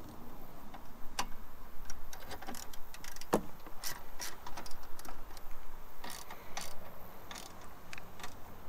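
Socket ratchet wrench clicking in short, irregular runs of sharp ticks as a seat-mounting bolt is tightened.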